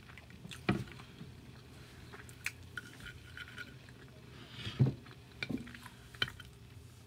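Close-miked eating sounds: a mouthful of loaded fries being chewed with soft wet mouth noises, and scattered clicks and scrapes of a plastic fork in the food and against the plate. The sharpest click comes about two-thirds of the way in.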